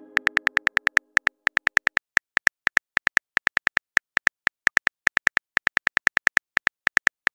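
Phone keyboard click sounds, a fast, uneven run of about six taps a second, as a text message is typed out letter by letter.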